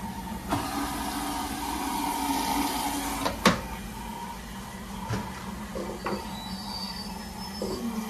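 Plastic detergent drawer of an LG front-load washing machine slid in its housing, then pushed shut with a sharp clack about three and a half seconds in. A few lighter knocks follow. A steady low hum from the switched-on machine runs underneath.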